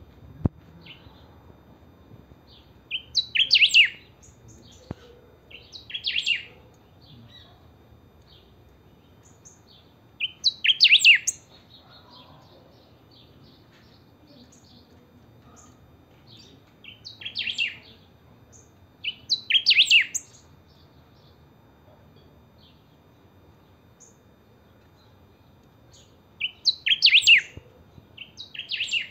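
Golden-billed saltator (picahueso) singing in a cage: short, loud song phrases of about a second each, repeated every few seconds, seven in all, with soft chirps between them.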